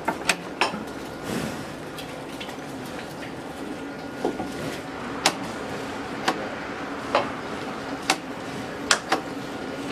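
Sharp knocks, a couple near the start and then about one a second through the second half, over a steady background hum at a cattle feeding stall.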